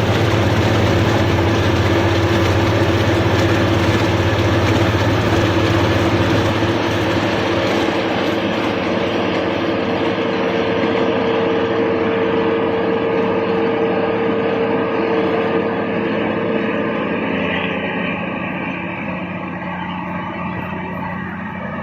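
Kubota DC35 combine harvester running steadily, engine and machinery together with a held whining tone, growing quieter near the end.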